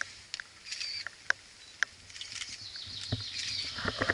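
Climbing shoes and hands scuffing and knocking on a rock boulder, with a few dull knocks near the end, among scattered short sharp clicks.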